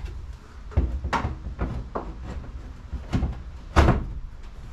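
A plastic DeWalt battery charger knocking and clacking against its mounting screws and the plywood wall as it is slid into its keyhole slots and tested for a firm seat. A string of sharp knocks, the loudest about four seconds in.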